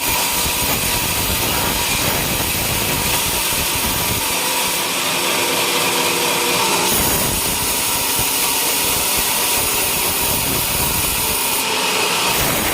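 Sawmill saw cutting through a coconut palm log, a steady loud sawing noise.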